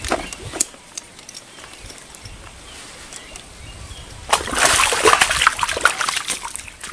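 A hooked snakehead thrashing at the surface close to the bank, a loud burst of splashing lasting about two seconds from past the middle. A few sharp clicks come near the start.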